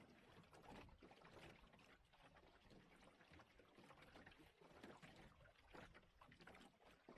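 Faint water splashing and lapping against the hull of a small 17-foot lug-rigged yawl under sail, in irregular slaps.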